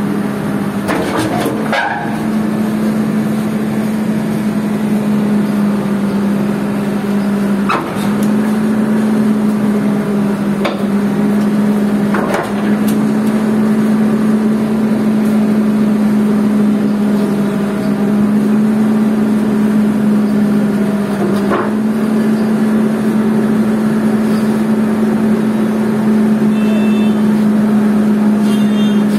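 LiuGong 915E crawler excavator's diesel engine running with a steady hum as the machine crawls up onto a lowbed trailer. A few sharp clanks break in, about eight, twelve and twenty-two seconds in.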